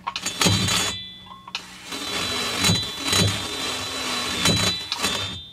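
Rotary tool spinning a burr and grinding the main transfer port of a chainsaw cylinder for porting: a short burst of cutting, then a longer run from about a second and a half in to near the end, with a steady high motor whine over the grind.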